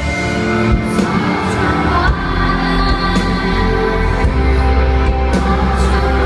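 Live pop band playing with a woman singing, heard from the audience in a concert hall. A deep bass comes in about two seconds in and holds.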